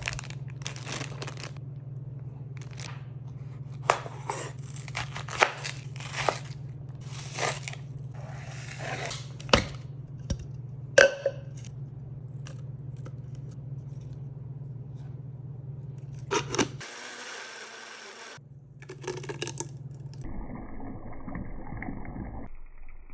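Scattered scrapes, crunches and sharp knocks of ingredients and utensils being handled during cooking prep, over a steady low hum; the background changes abruptly a few times.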